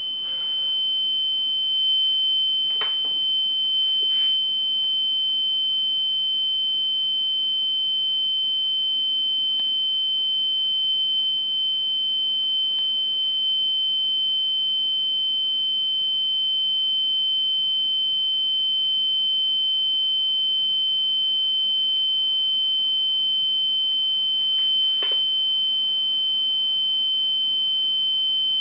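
Alarm buzzer sounding one continuous, steady, high-pitched tone, with a few faint clicks over it. This is the sign that the heated graphene oxide thermosensitive sensor has turned electrically conductive and closed the alarm circuit.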